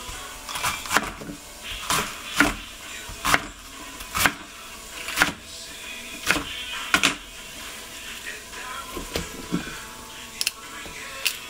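Kitchen knife chopping bok choy on a plastic cutting board, a sharp chop about once a second, thinning out after about seven seconds to a few lighter knocks.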